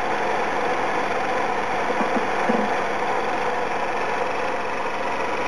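Bell & Howell 16mm movie projector running film through its jeweled sapphire movement: a steady, even mechanical whirring clatter from the intermittent film drive and motor.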